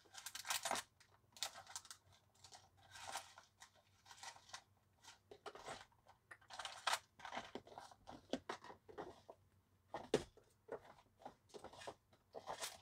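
Rummaging through jewellery-making supplies: faint, irregular rustling and crinkling with small clicks, and a louder knock about ten seconds in.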